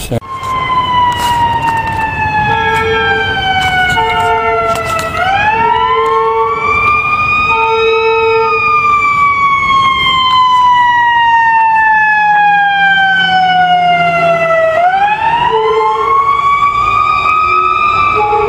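Emergency-vehicle siren wailing loudly, its pitch sliding slowly down for about five seconds, swooping back up, then falling slowly again before rising once more near the end. Short repeated blasts of a lower steady horn tone sound over it.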